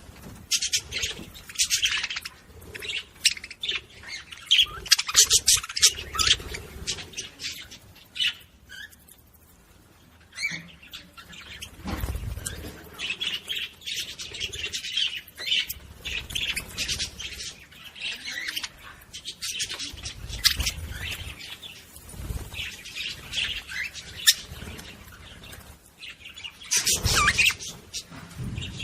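Budgerigars chirping and chattering in rapid, squawky high-pitched bursts, with a quieter lull about eight to eleven seconds in.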